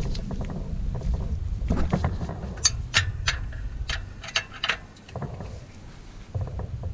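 A wrench tightening the oil pan drain plug: a series of sharp metallic clicks, uneven and spread over a few seconds in the middle, over a low rumble that fades about halfway through.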